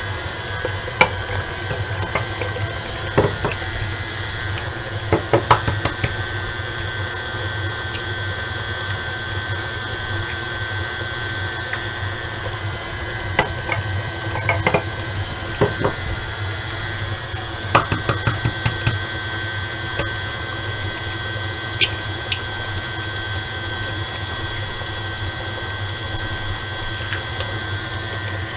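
Electric stand mixer running steadily at one speed, beating thick cheesecake batter of cream cheese, sugar and eggs, a constant motor hum and whine. Scattered short clicks and taps come in small clusters.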